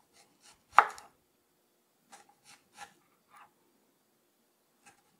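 Chef's knife slicing an onion into rings on a bamboo cutting board: one sharp knock of the blade hitting the board about a second in, then a few softer cuts and taps.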